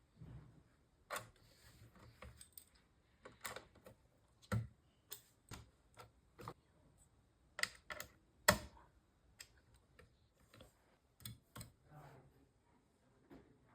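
Irregular light clicks and taps, about one or two a second, with the sharpest knocks a third of the way in and just past the middle.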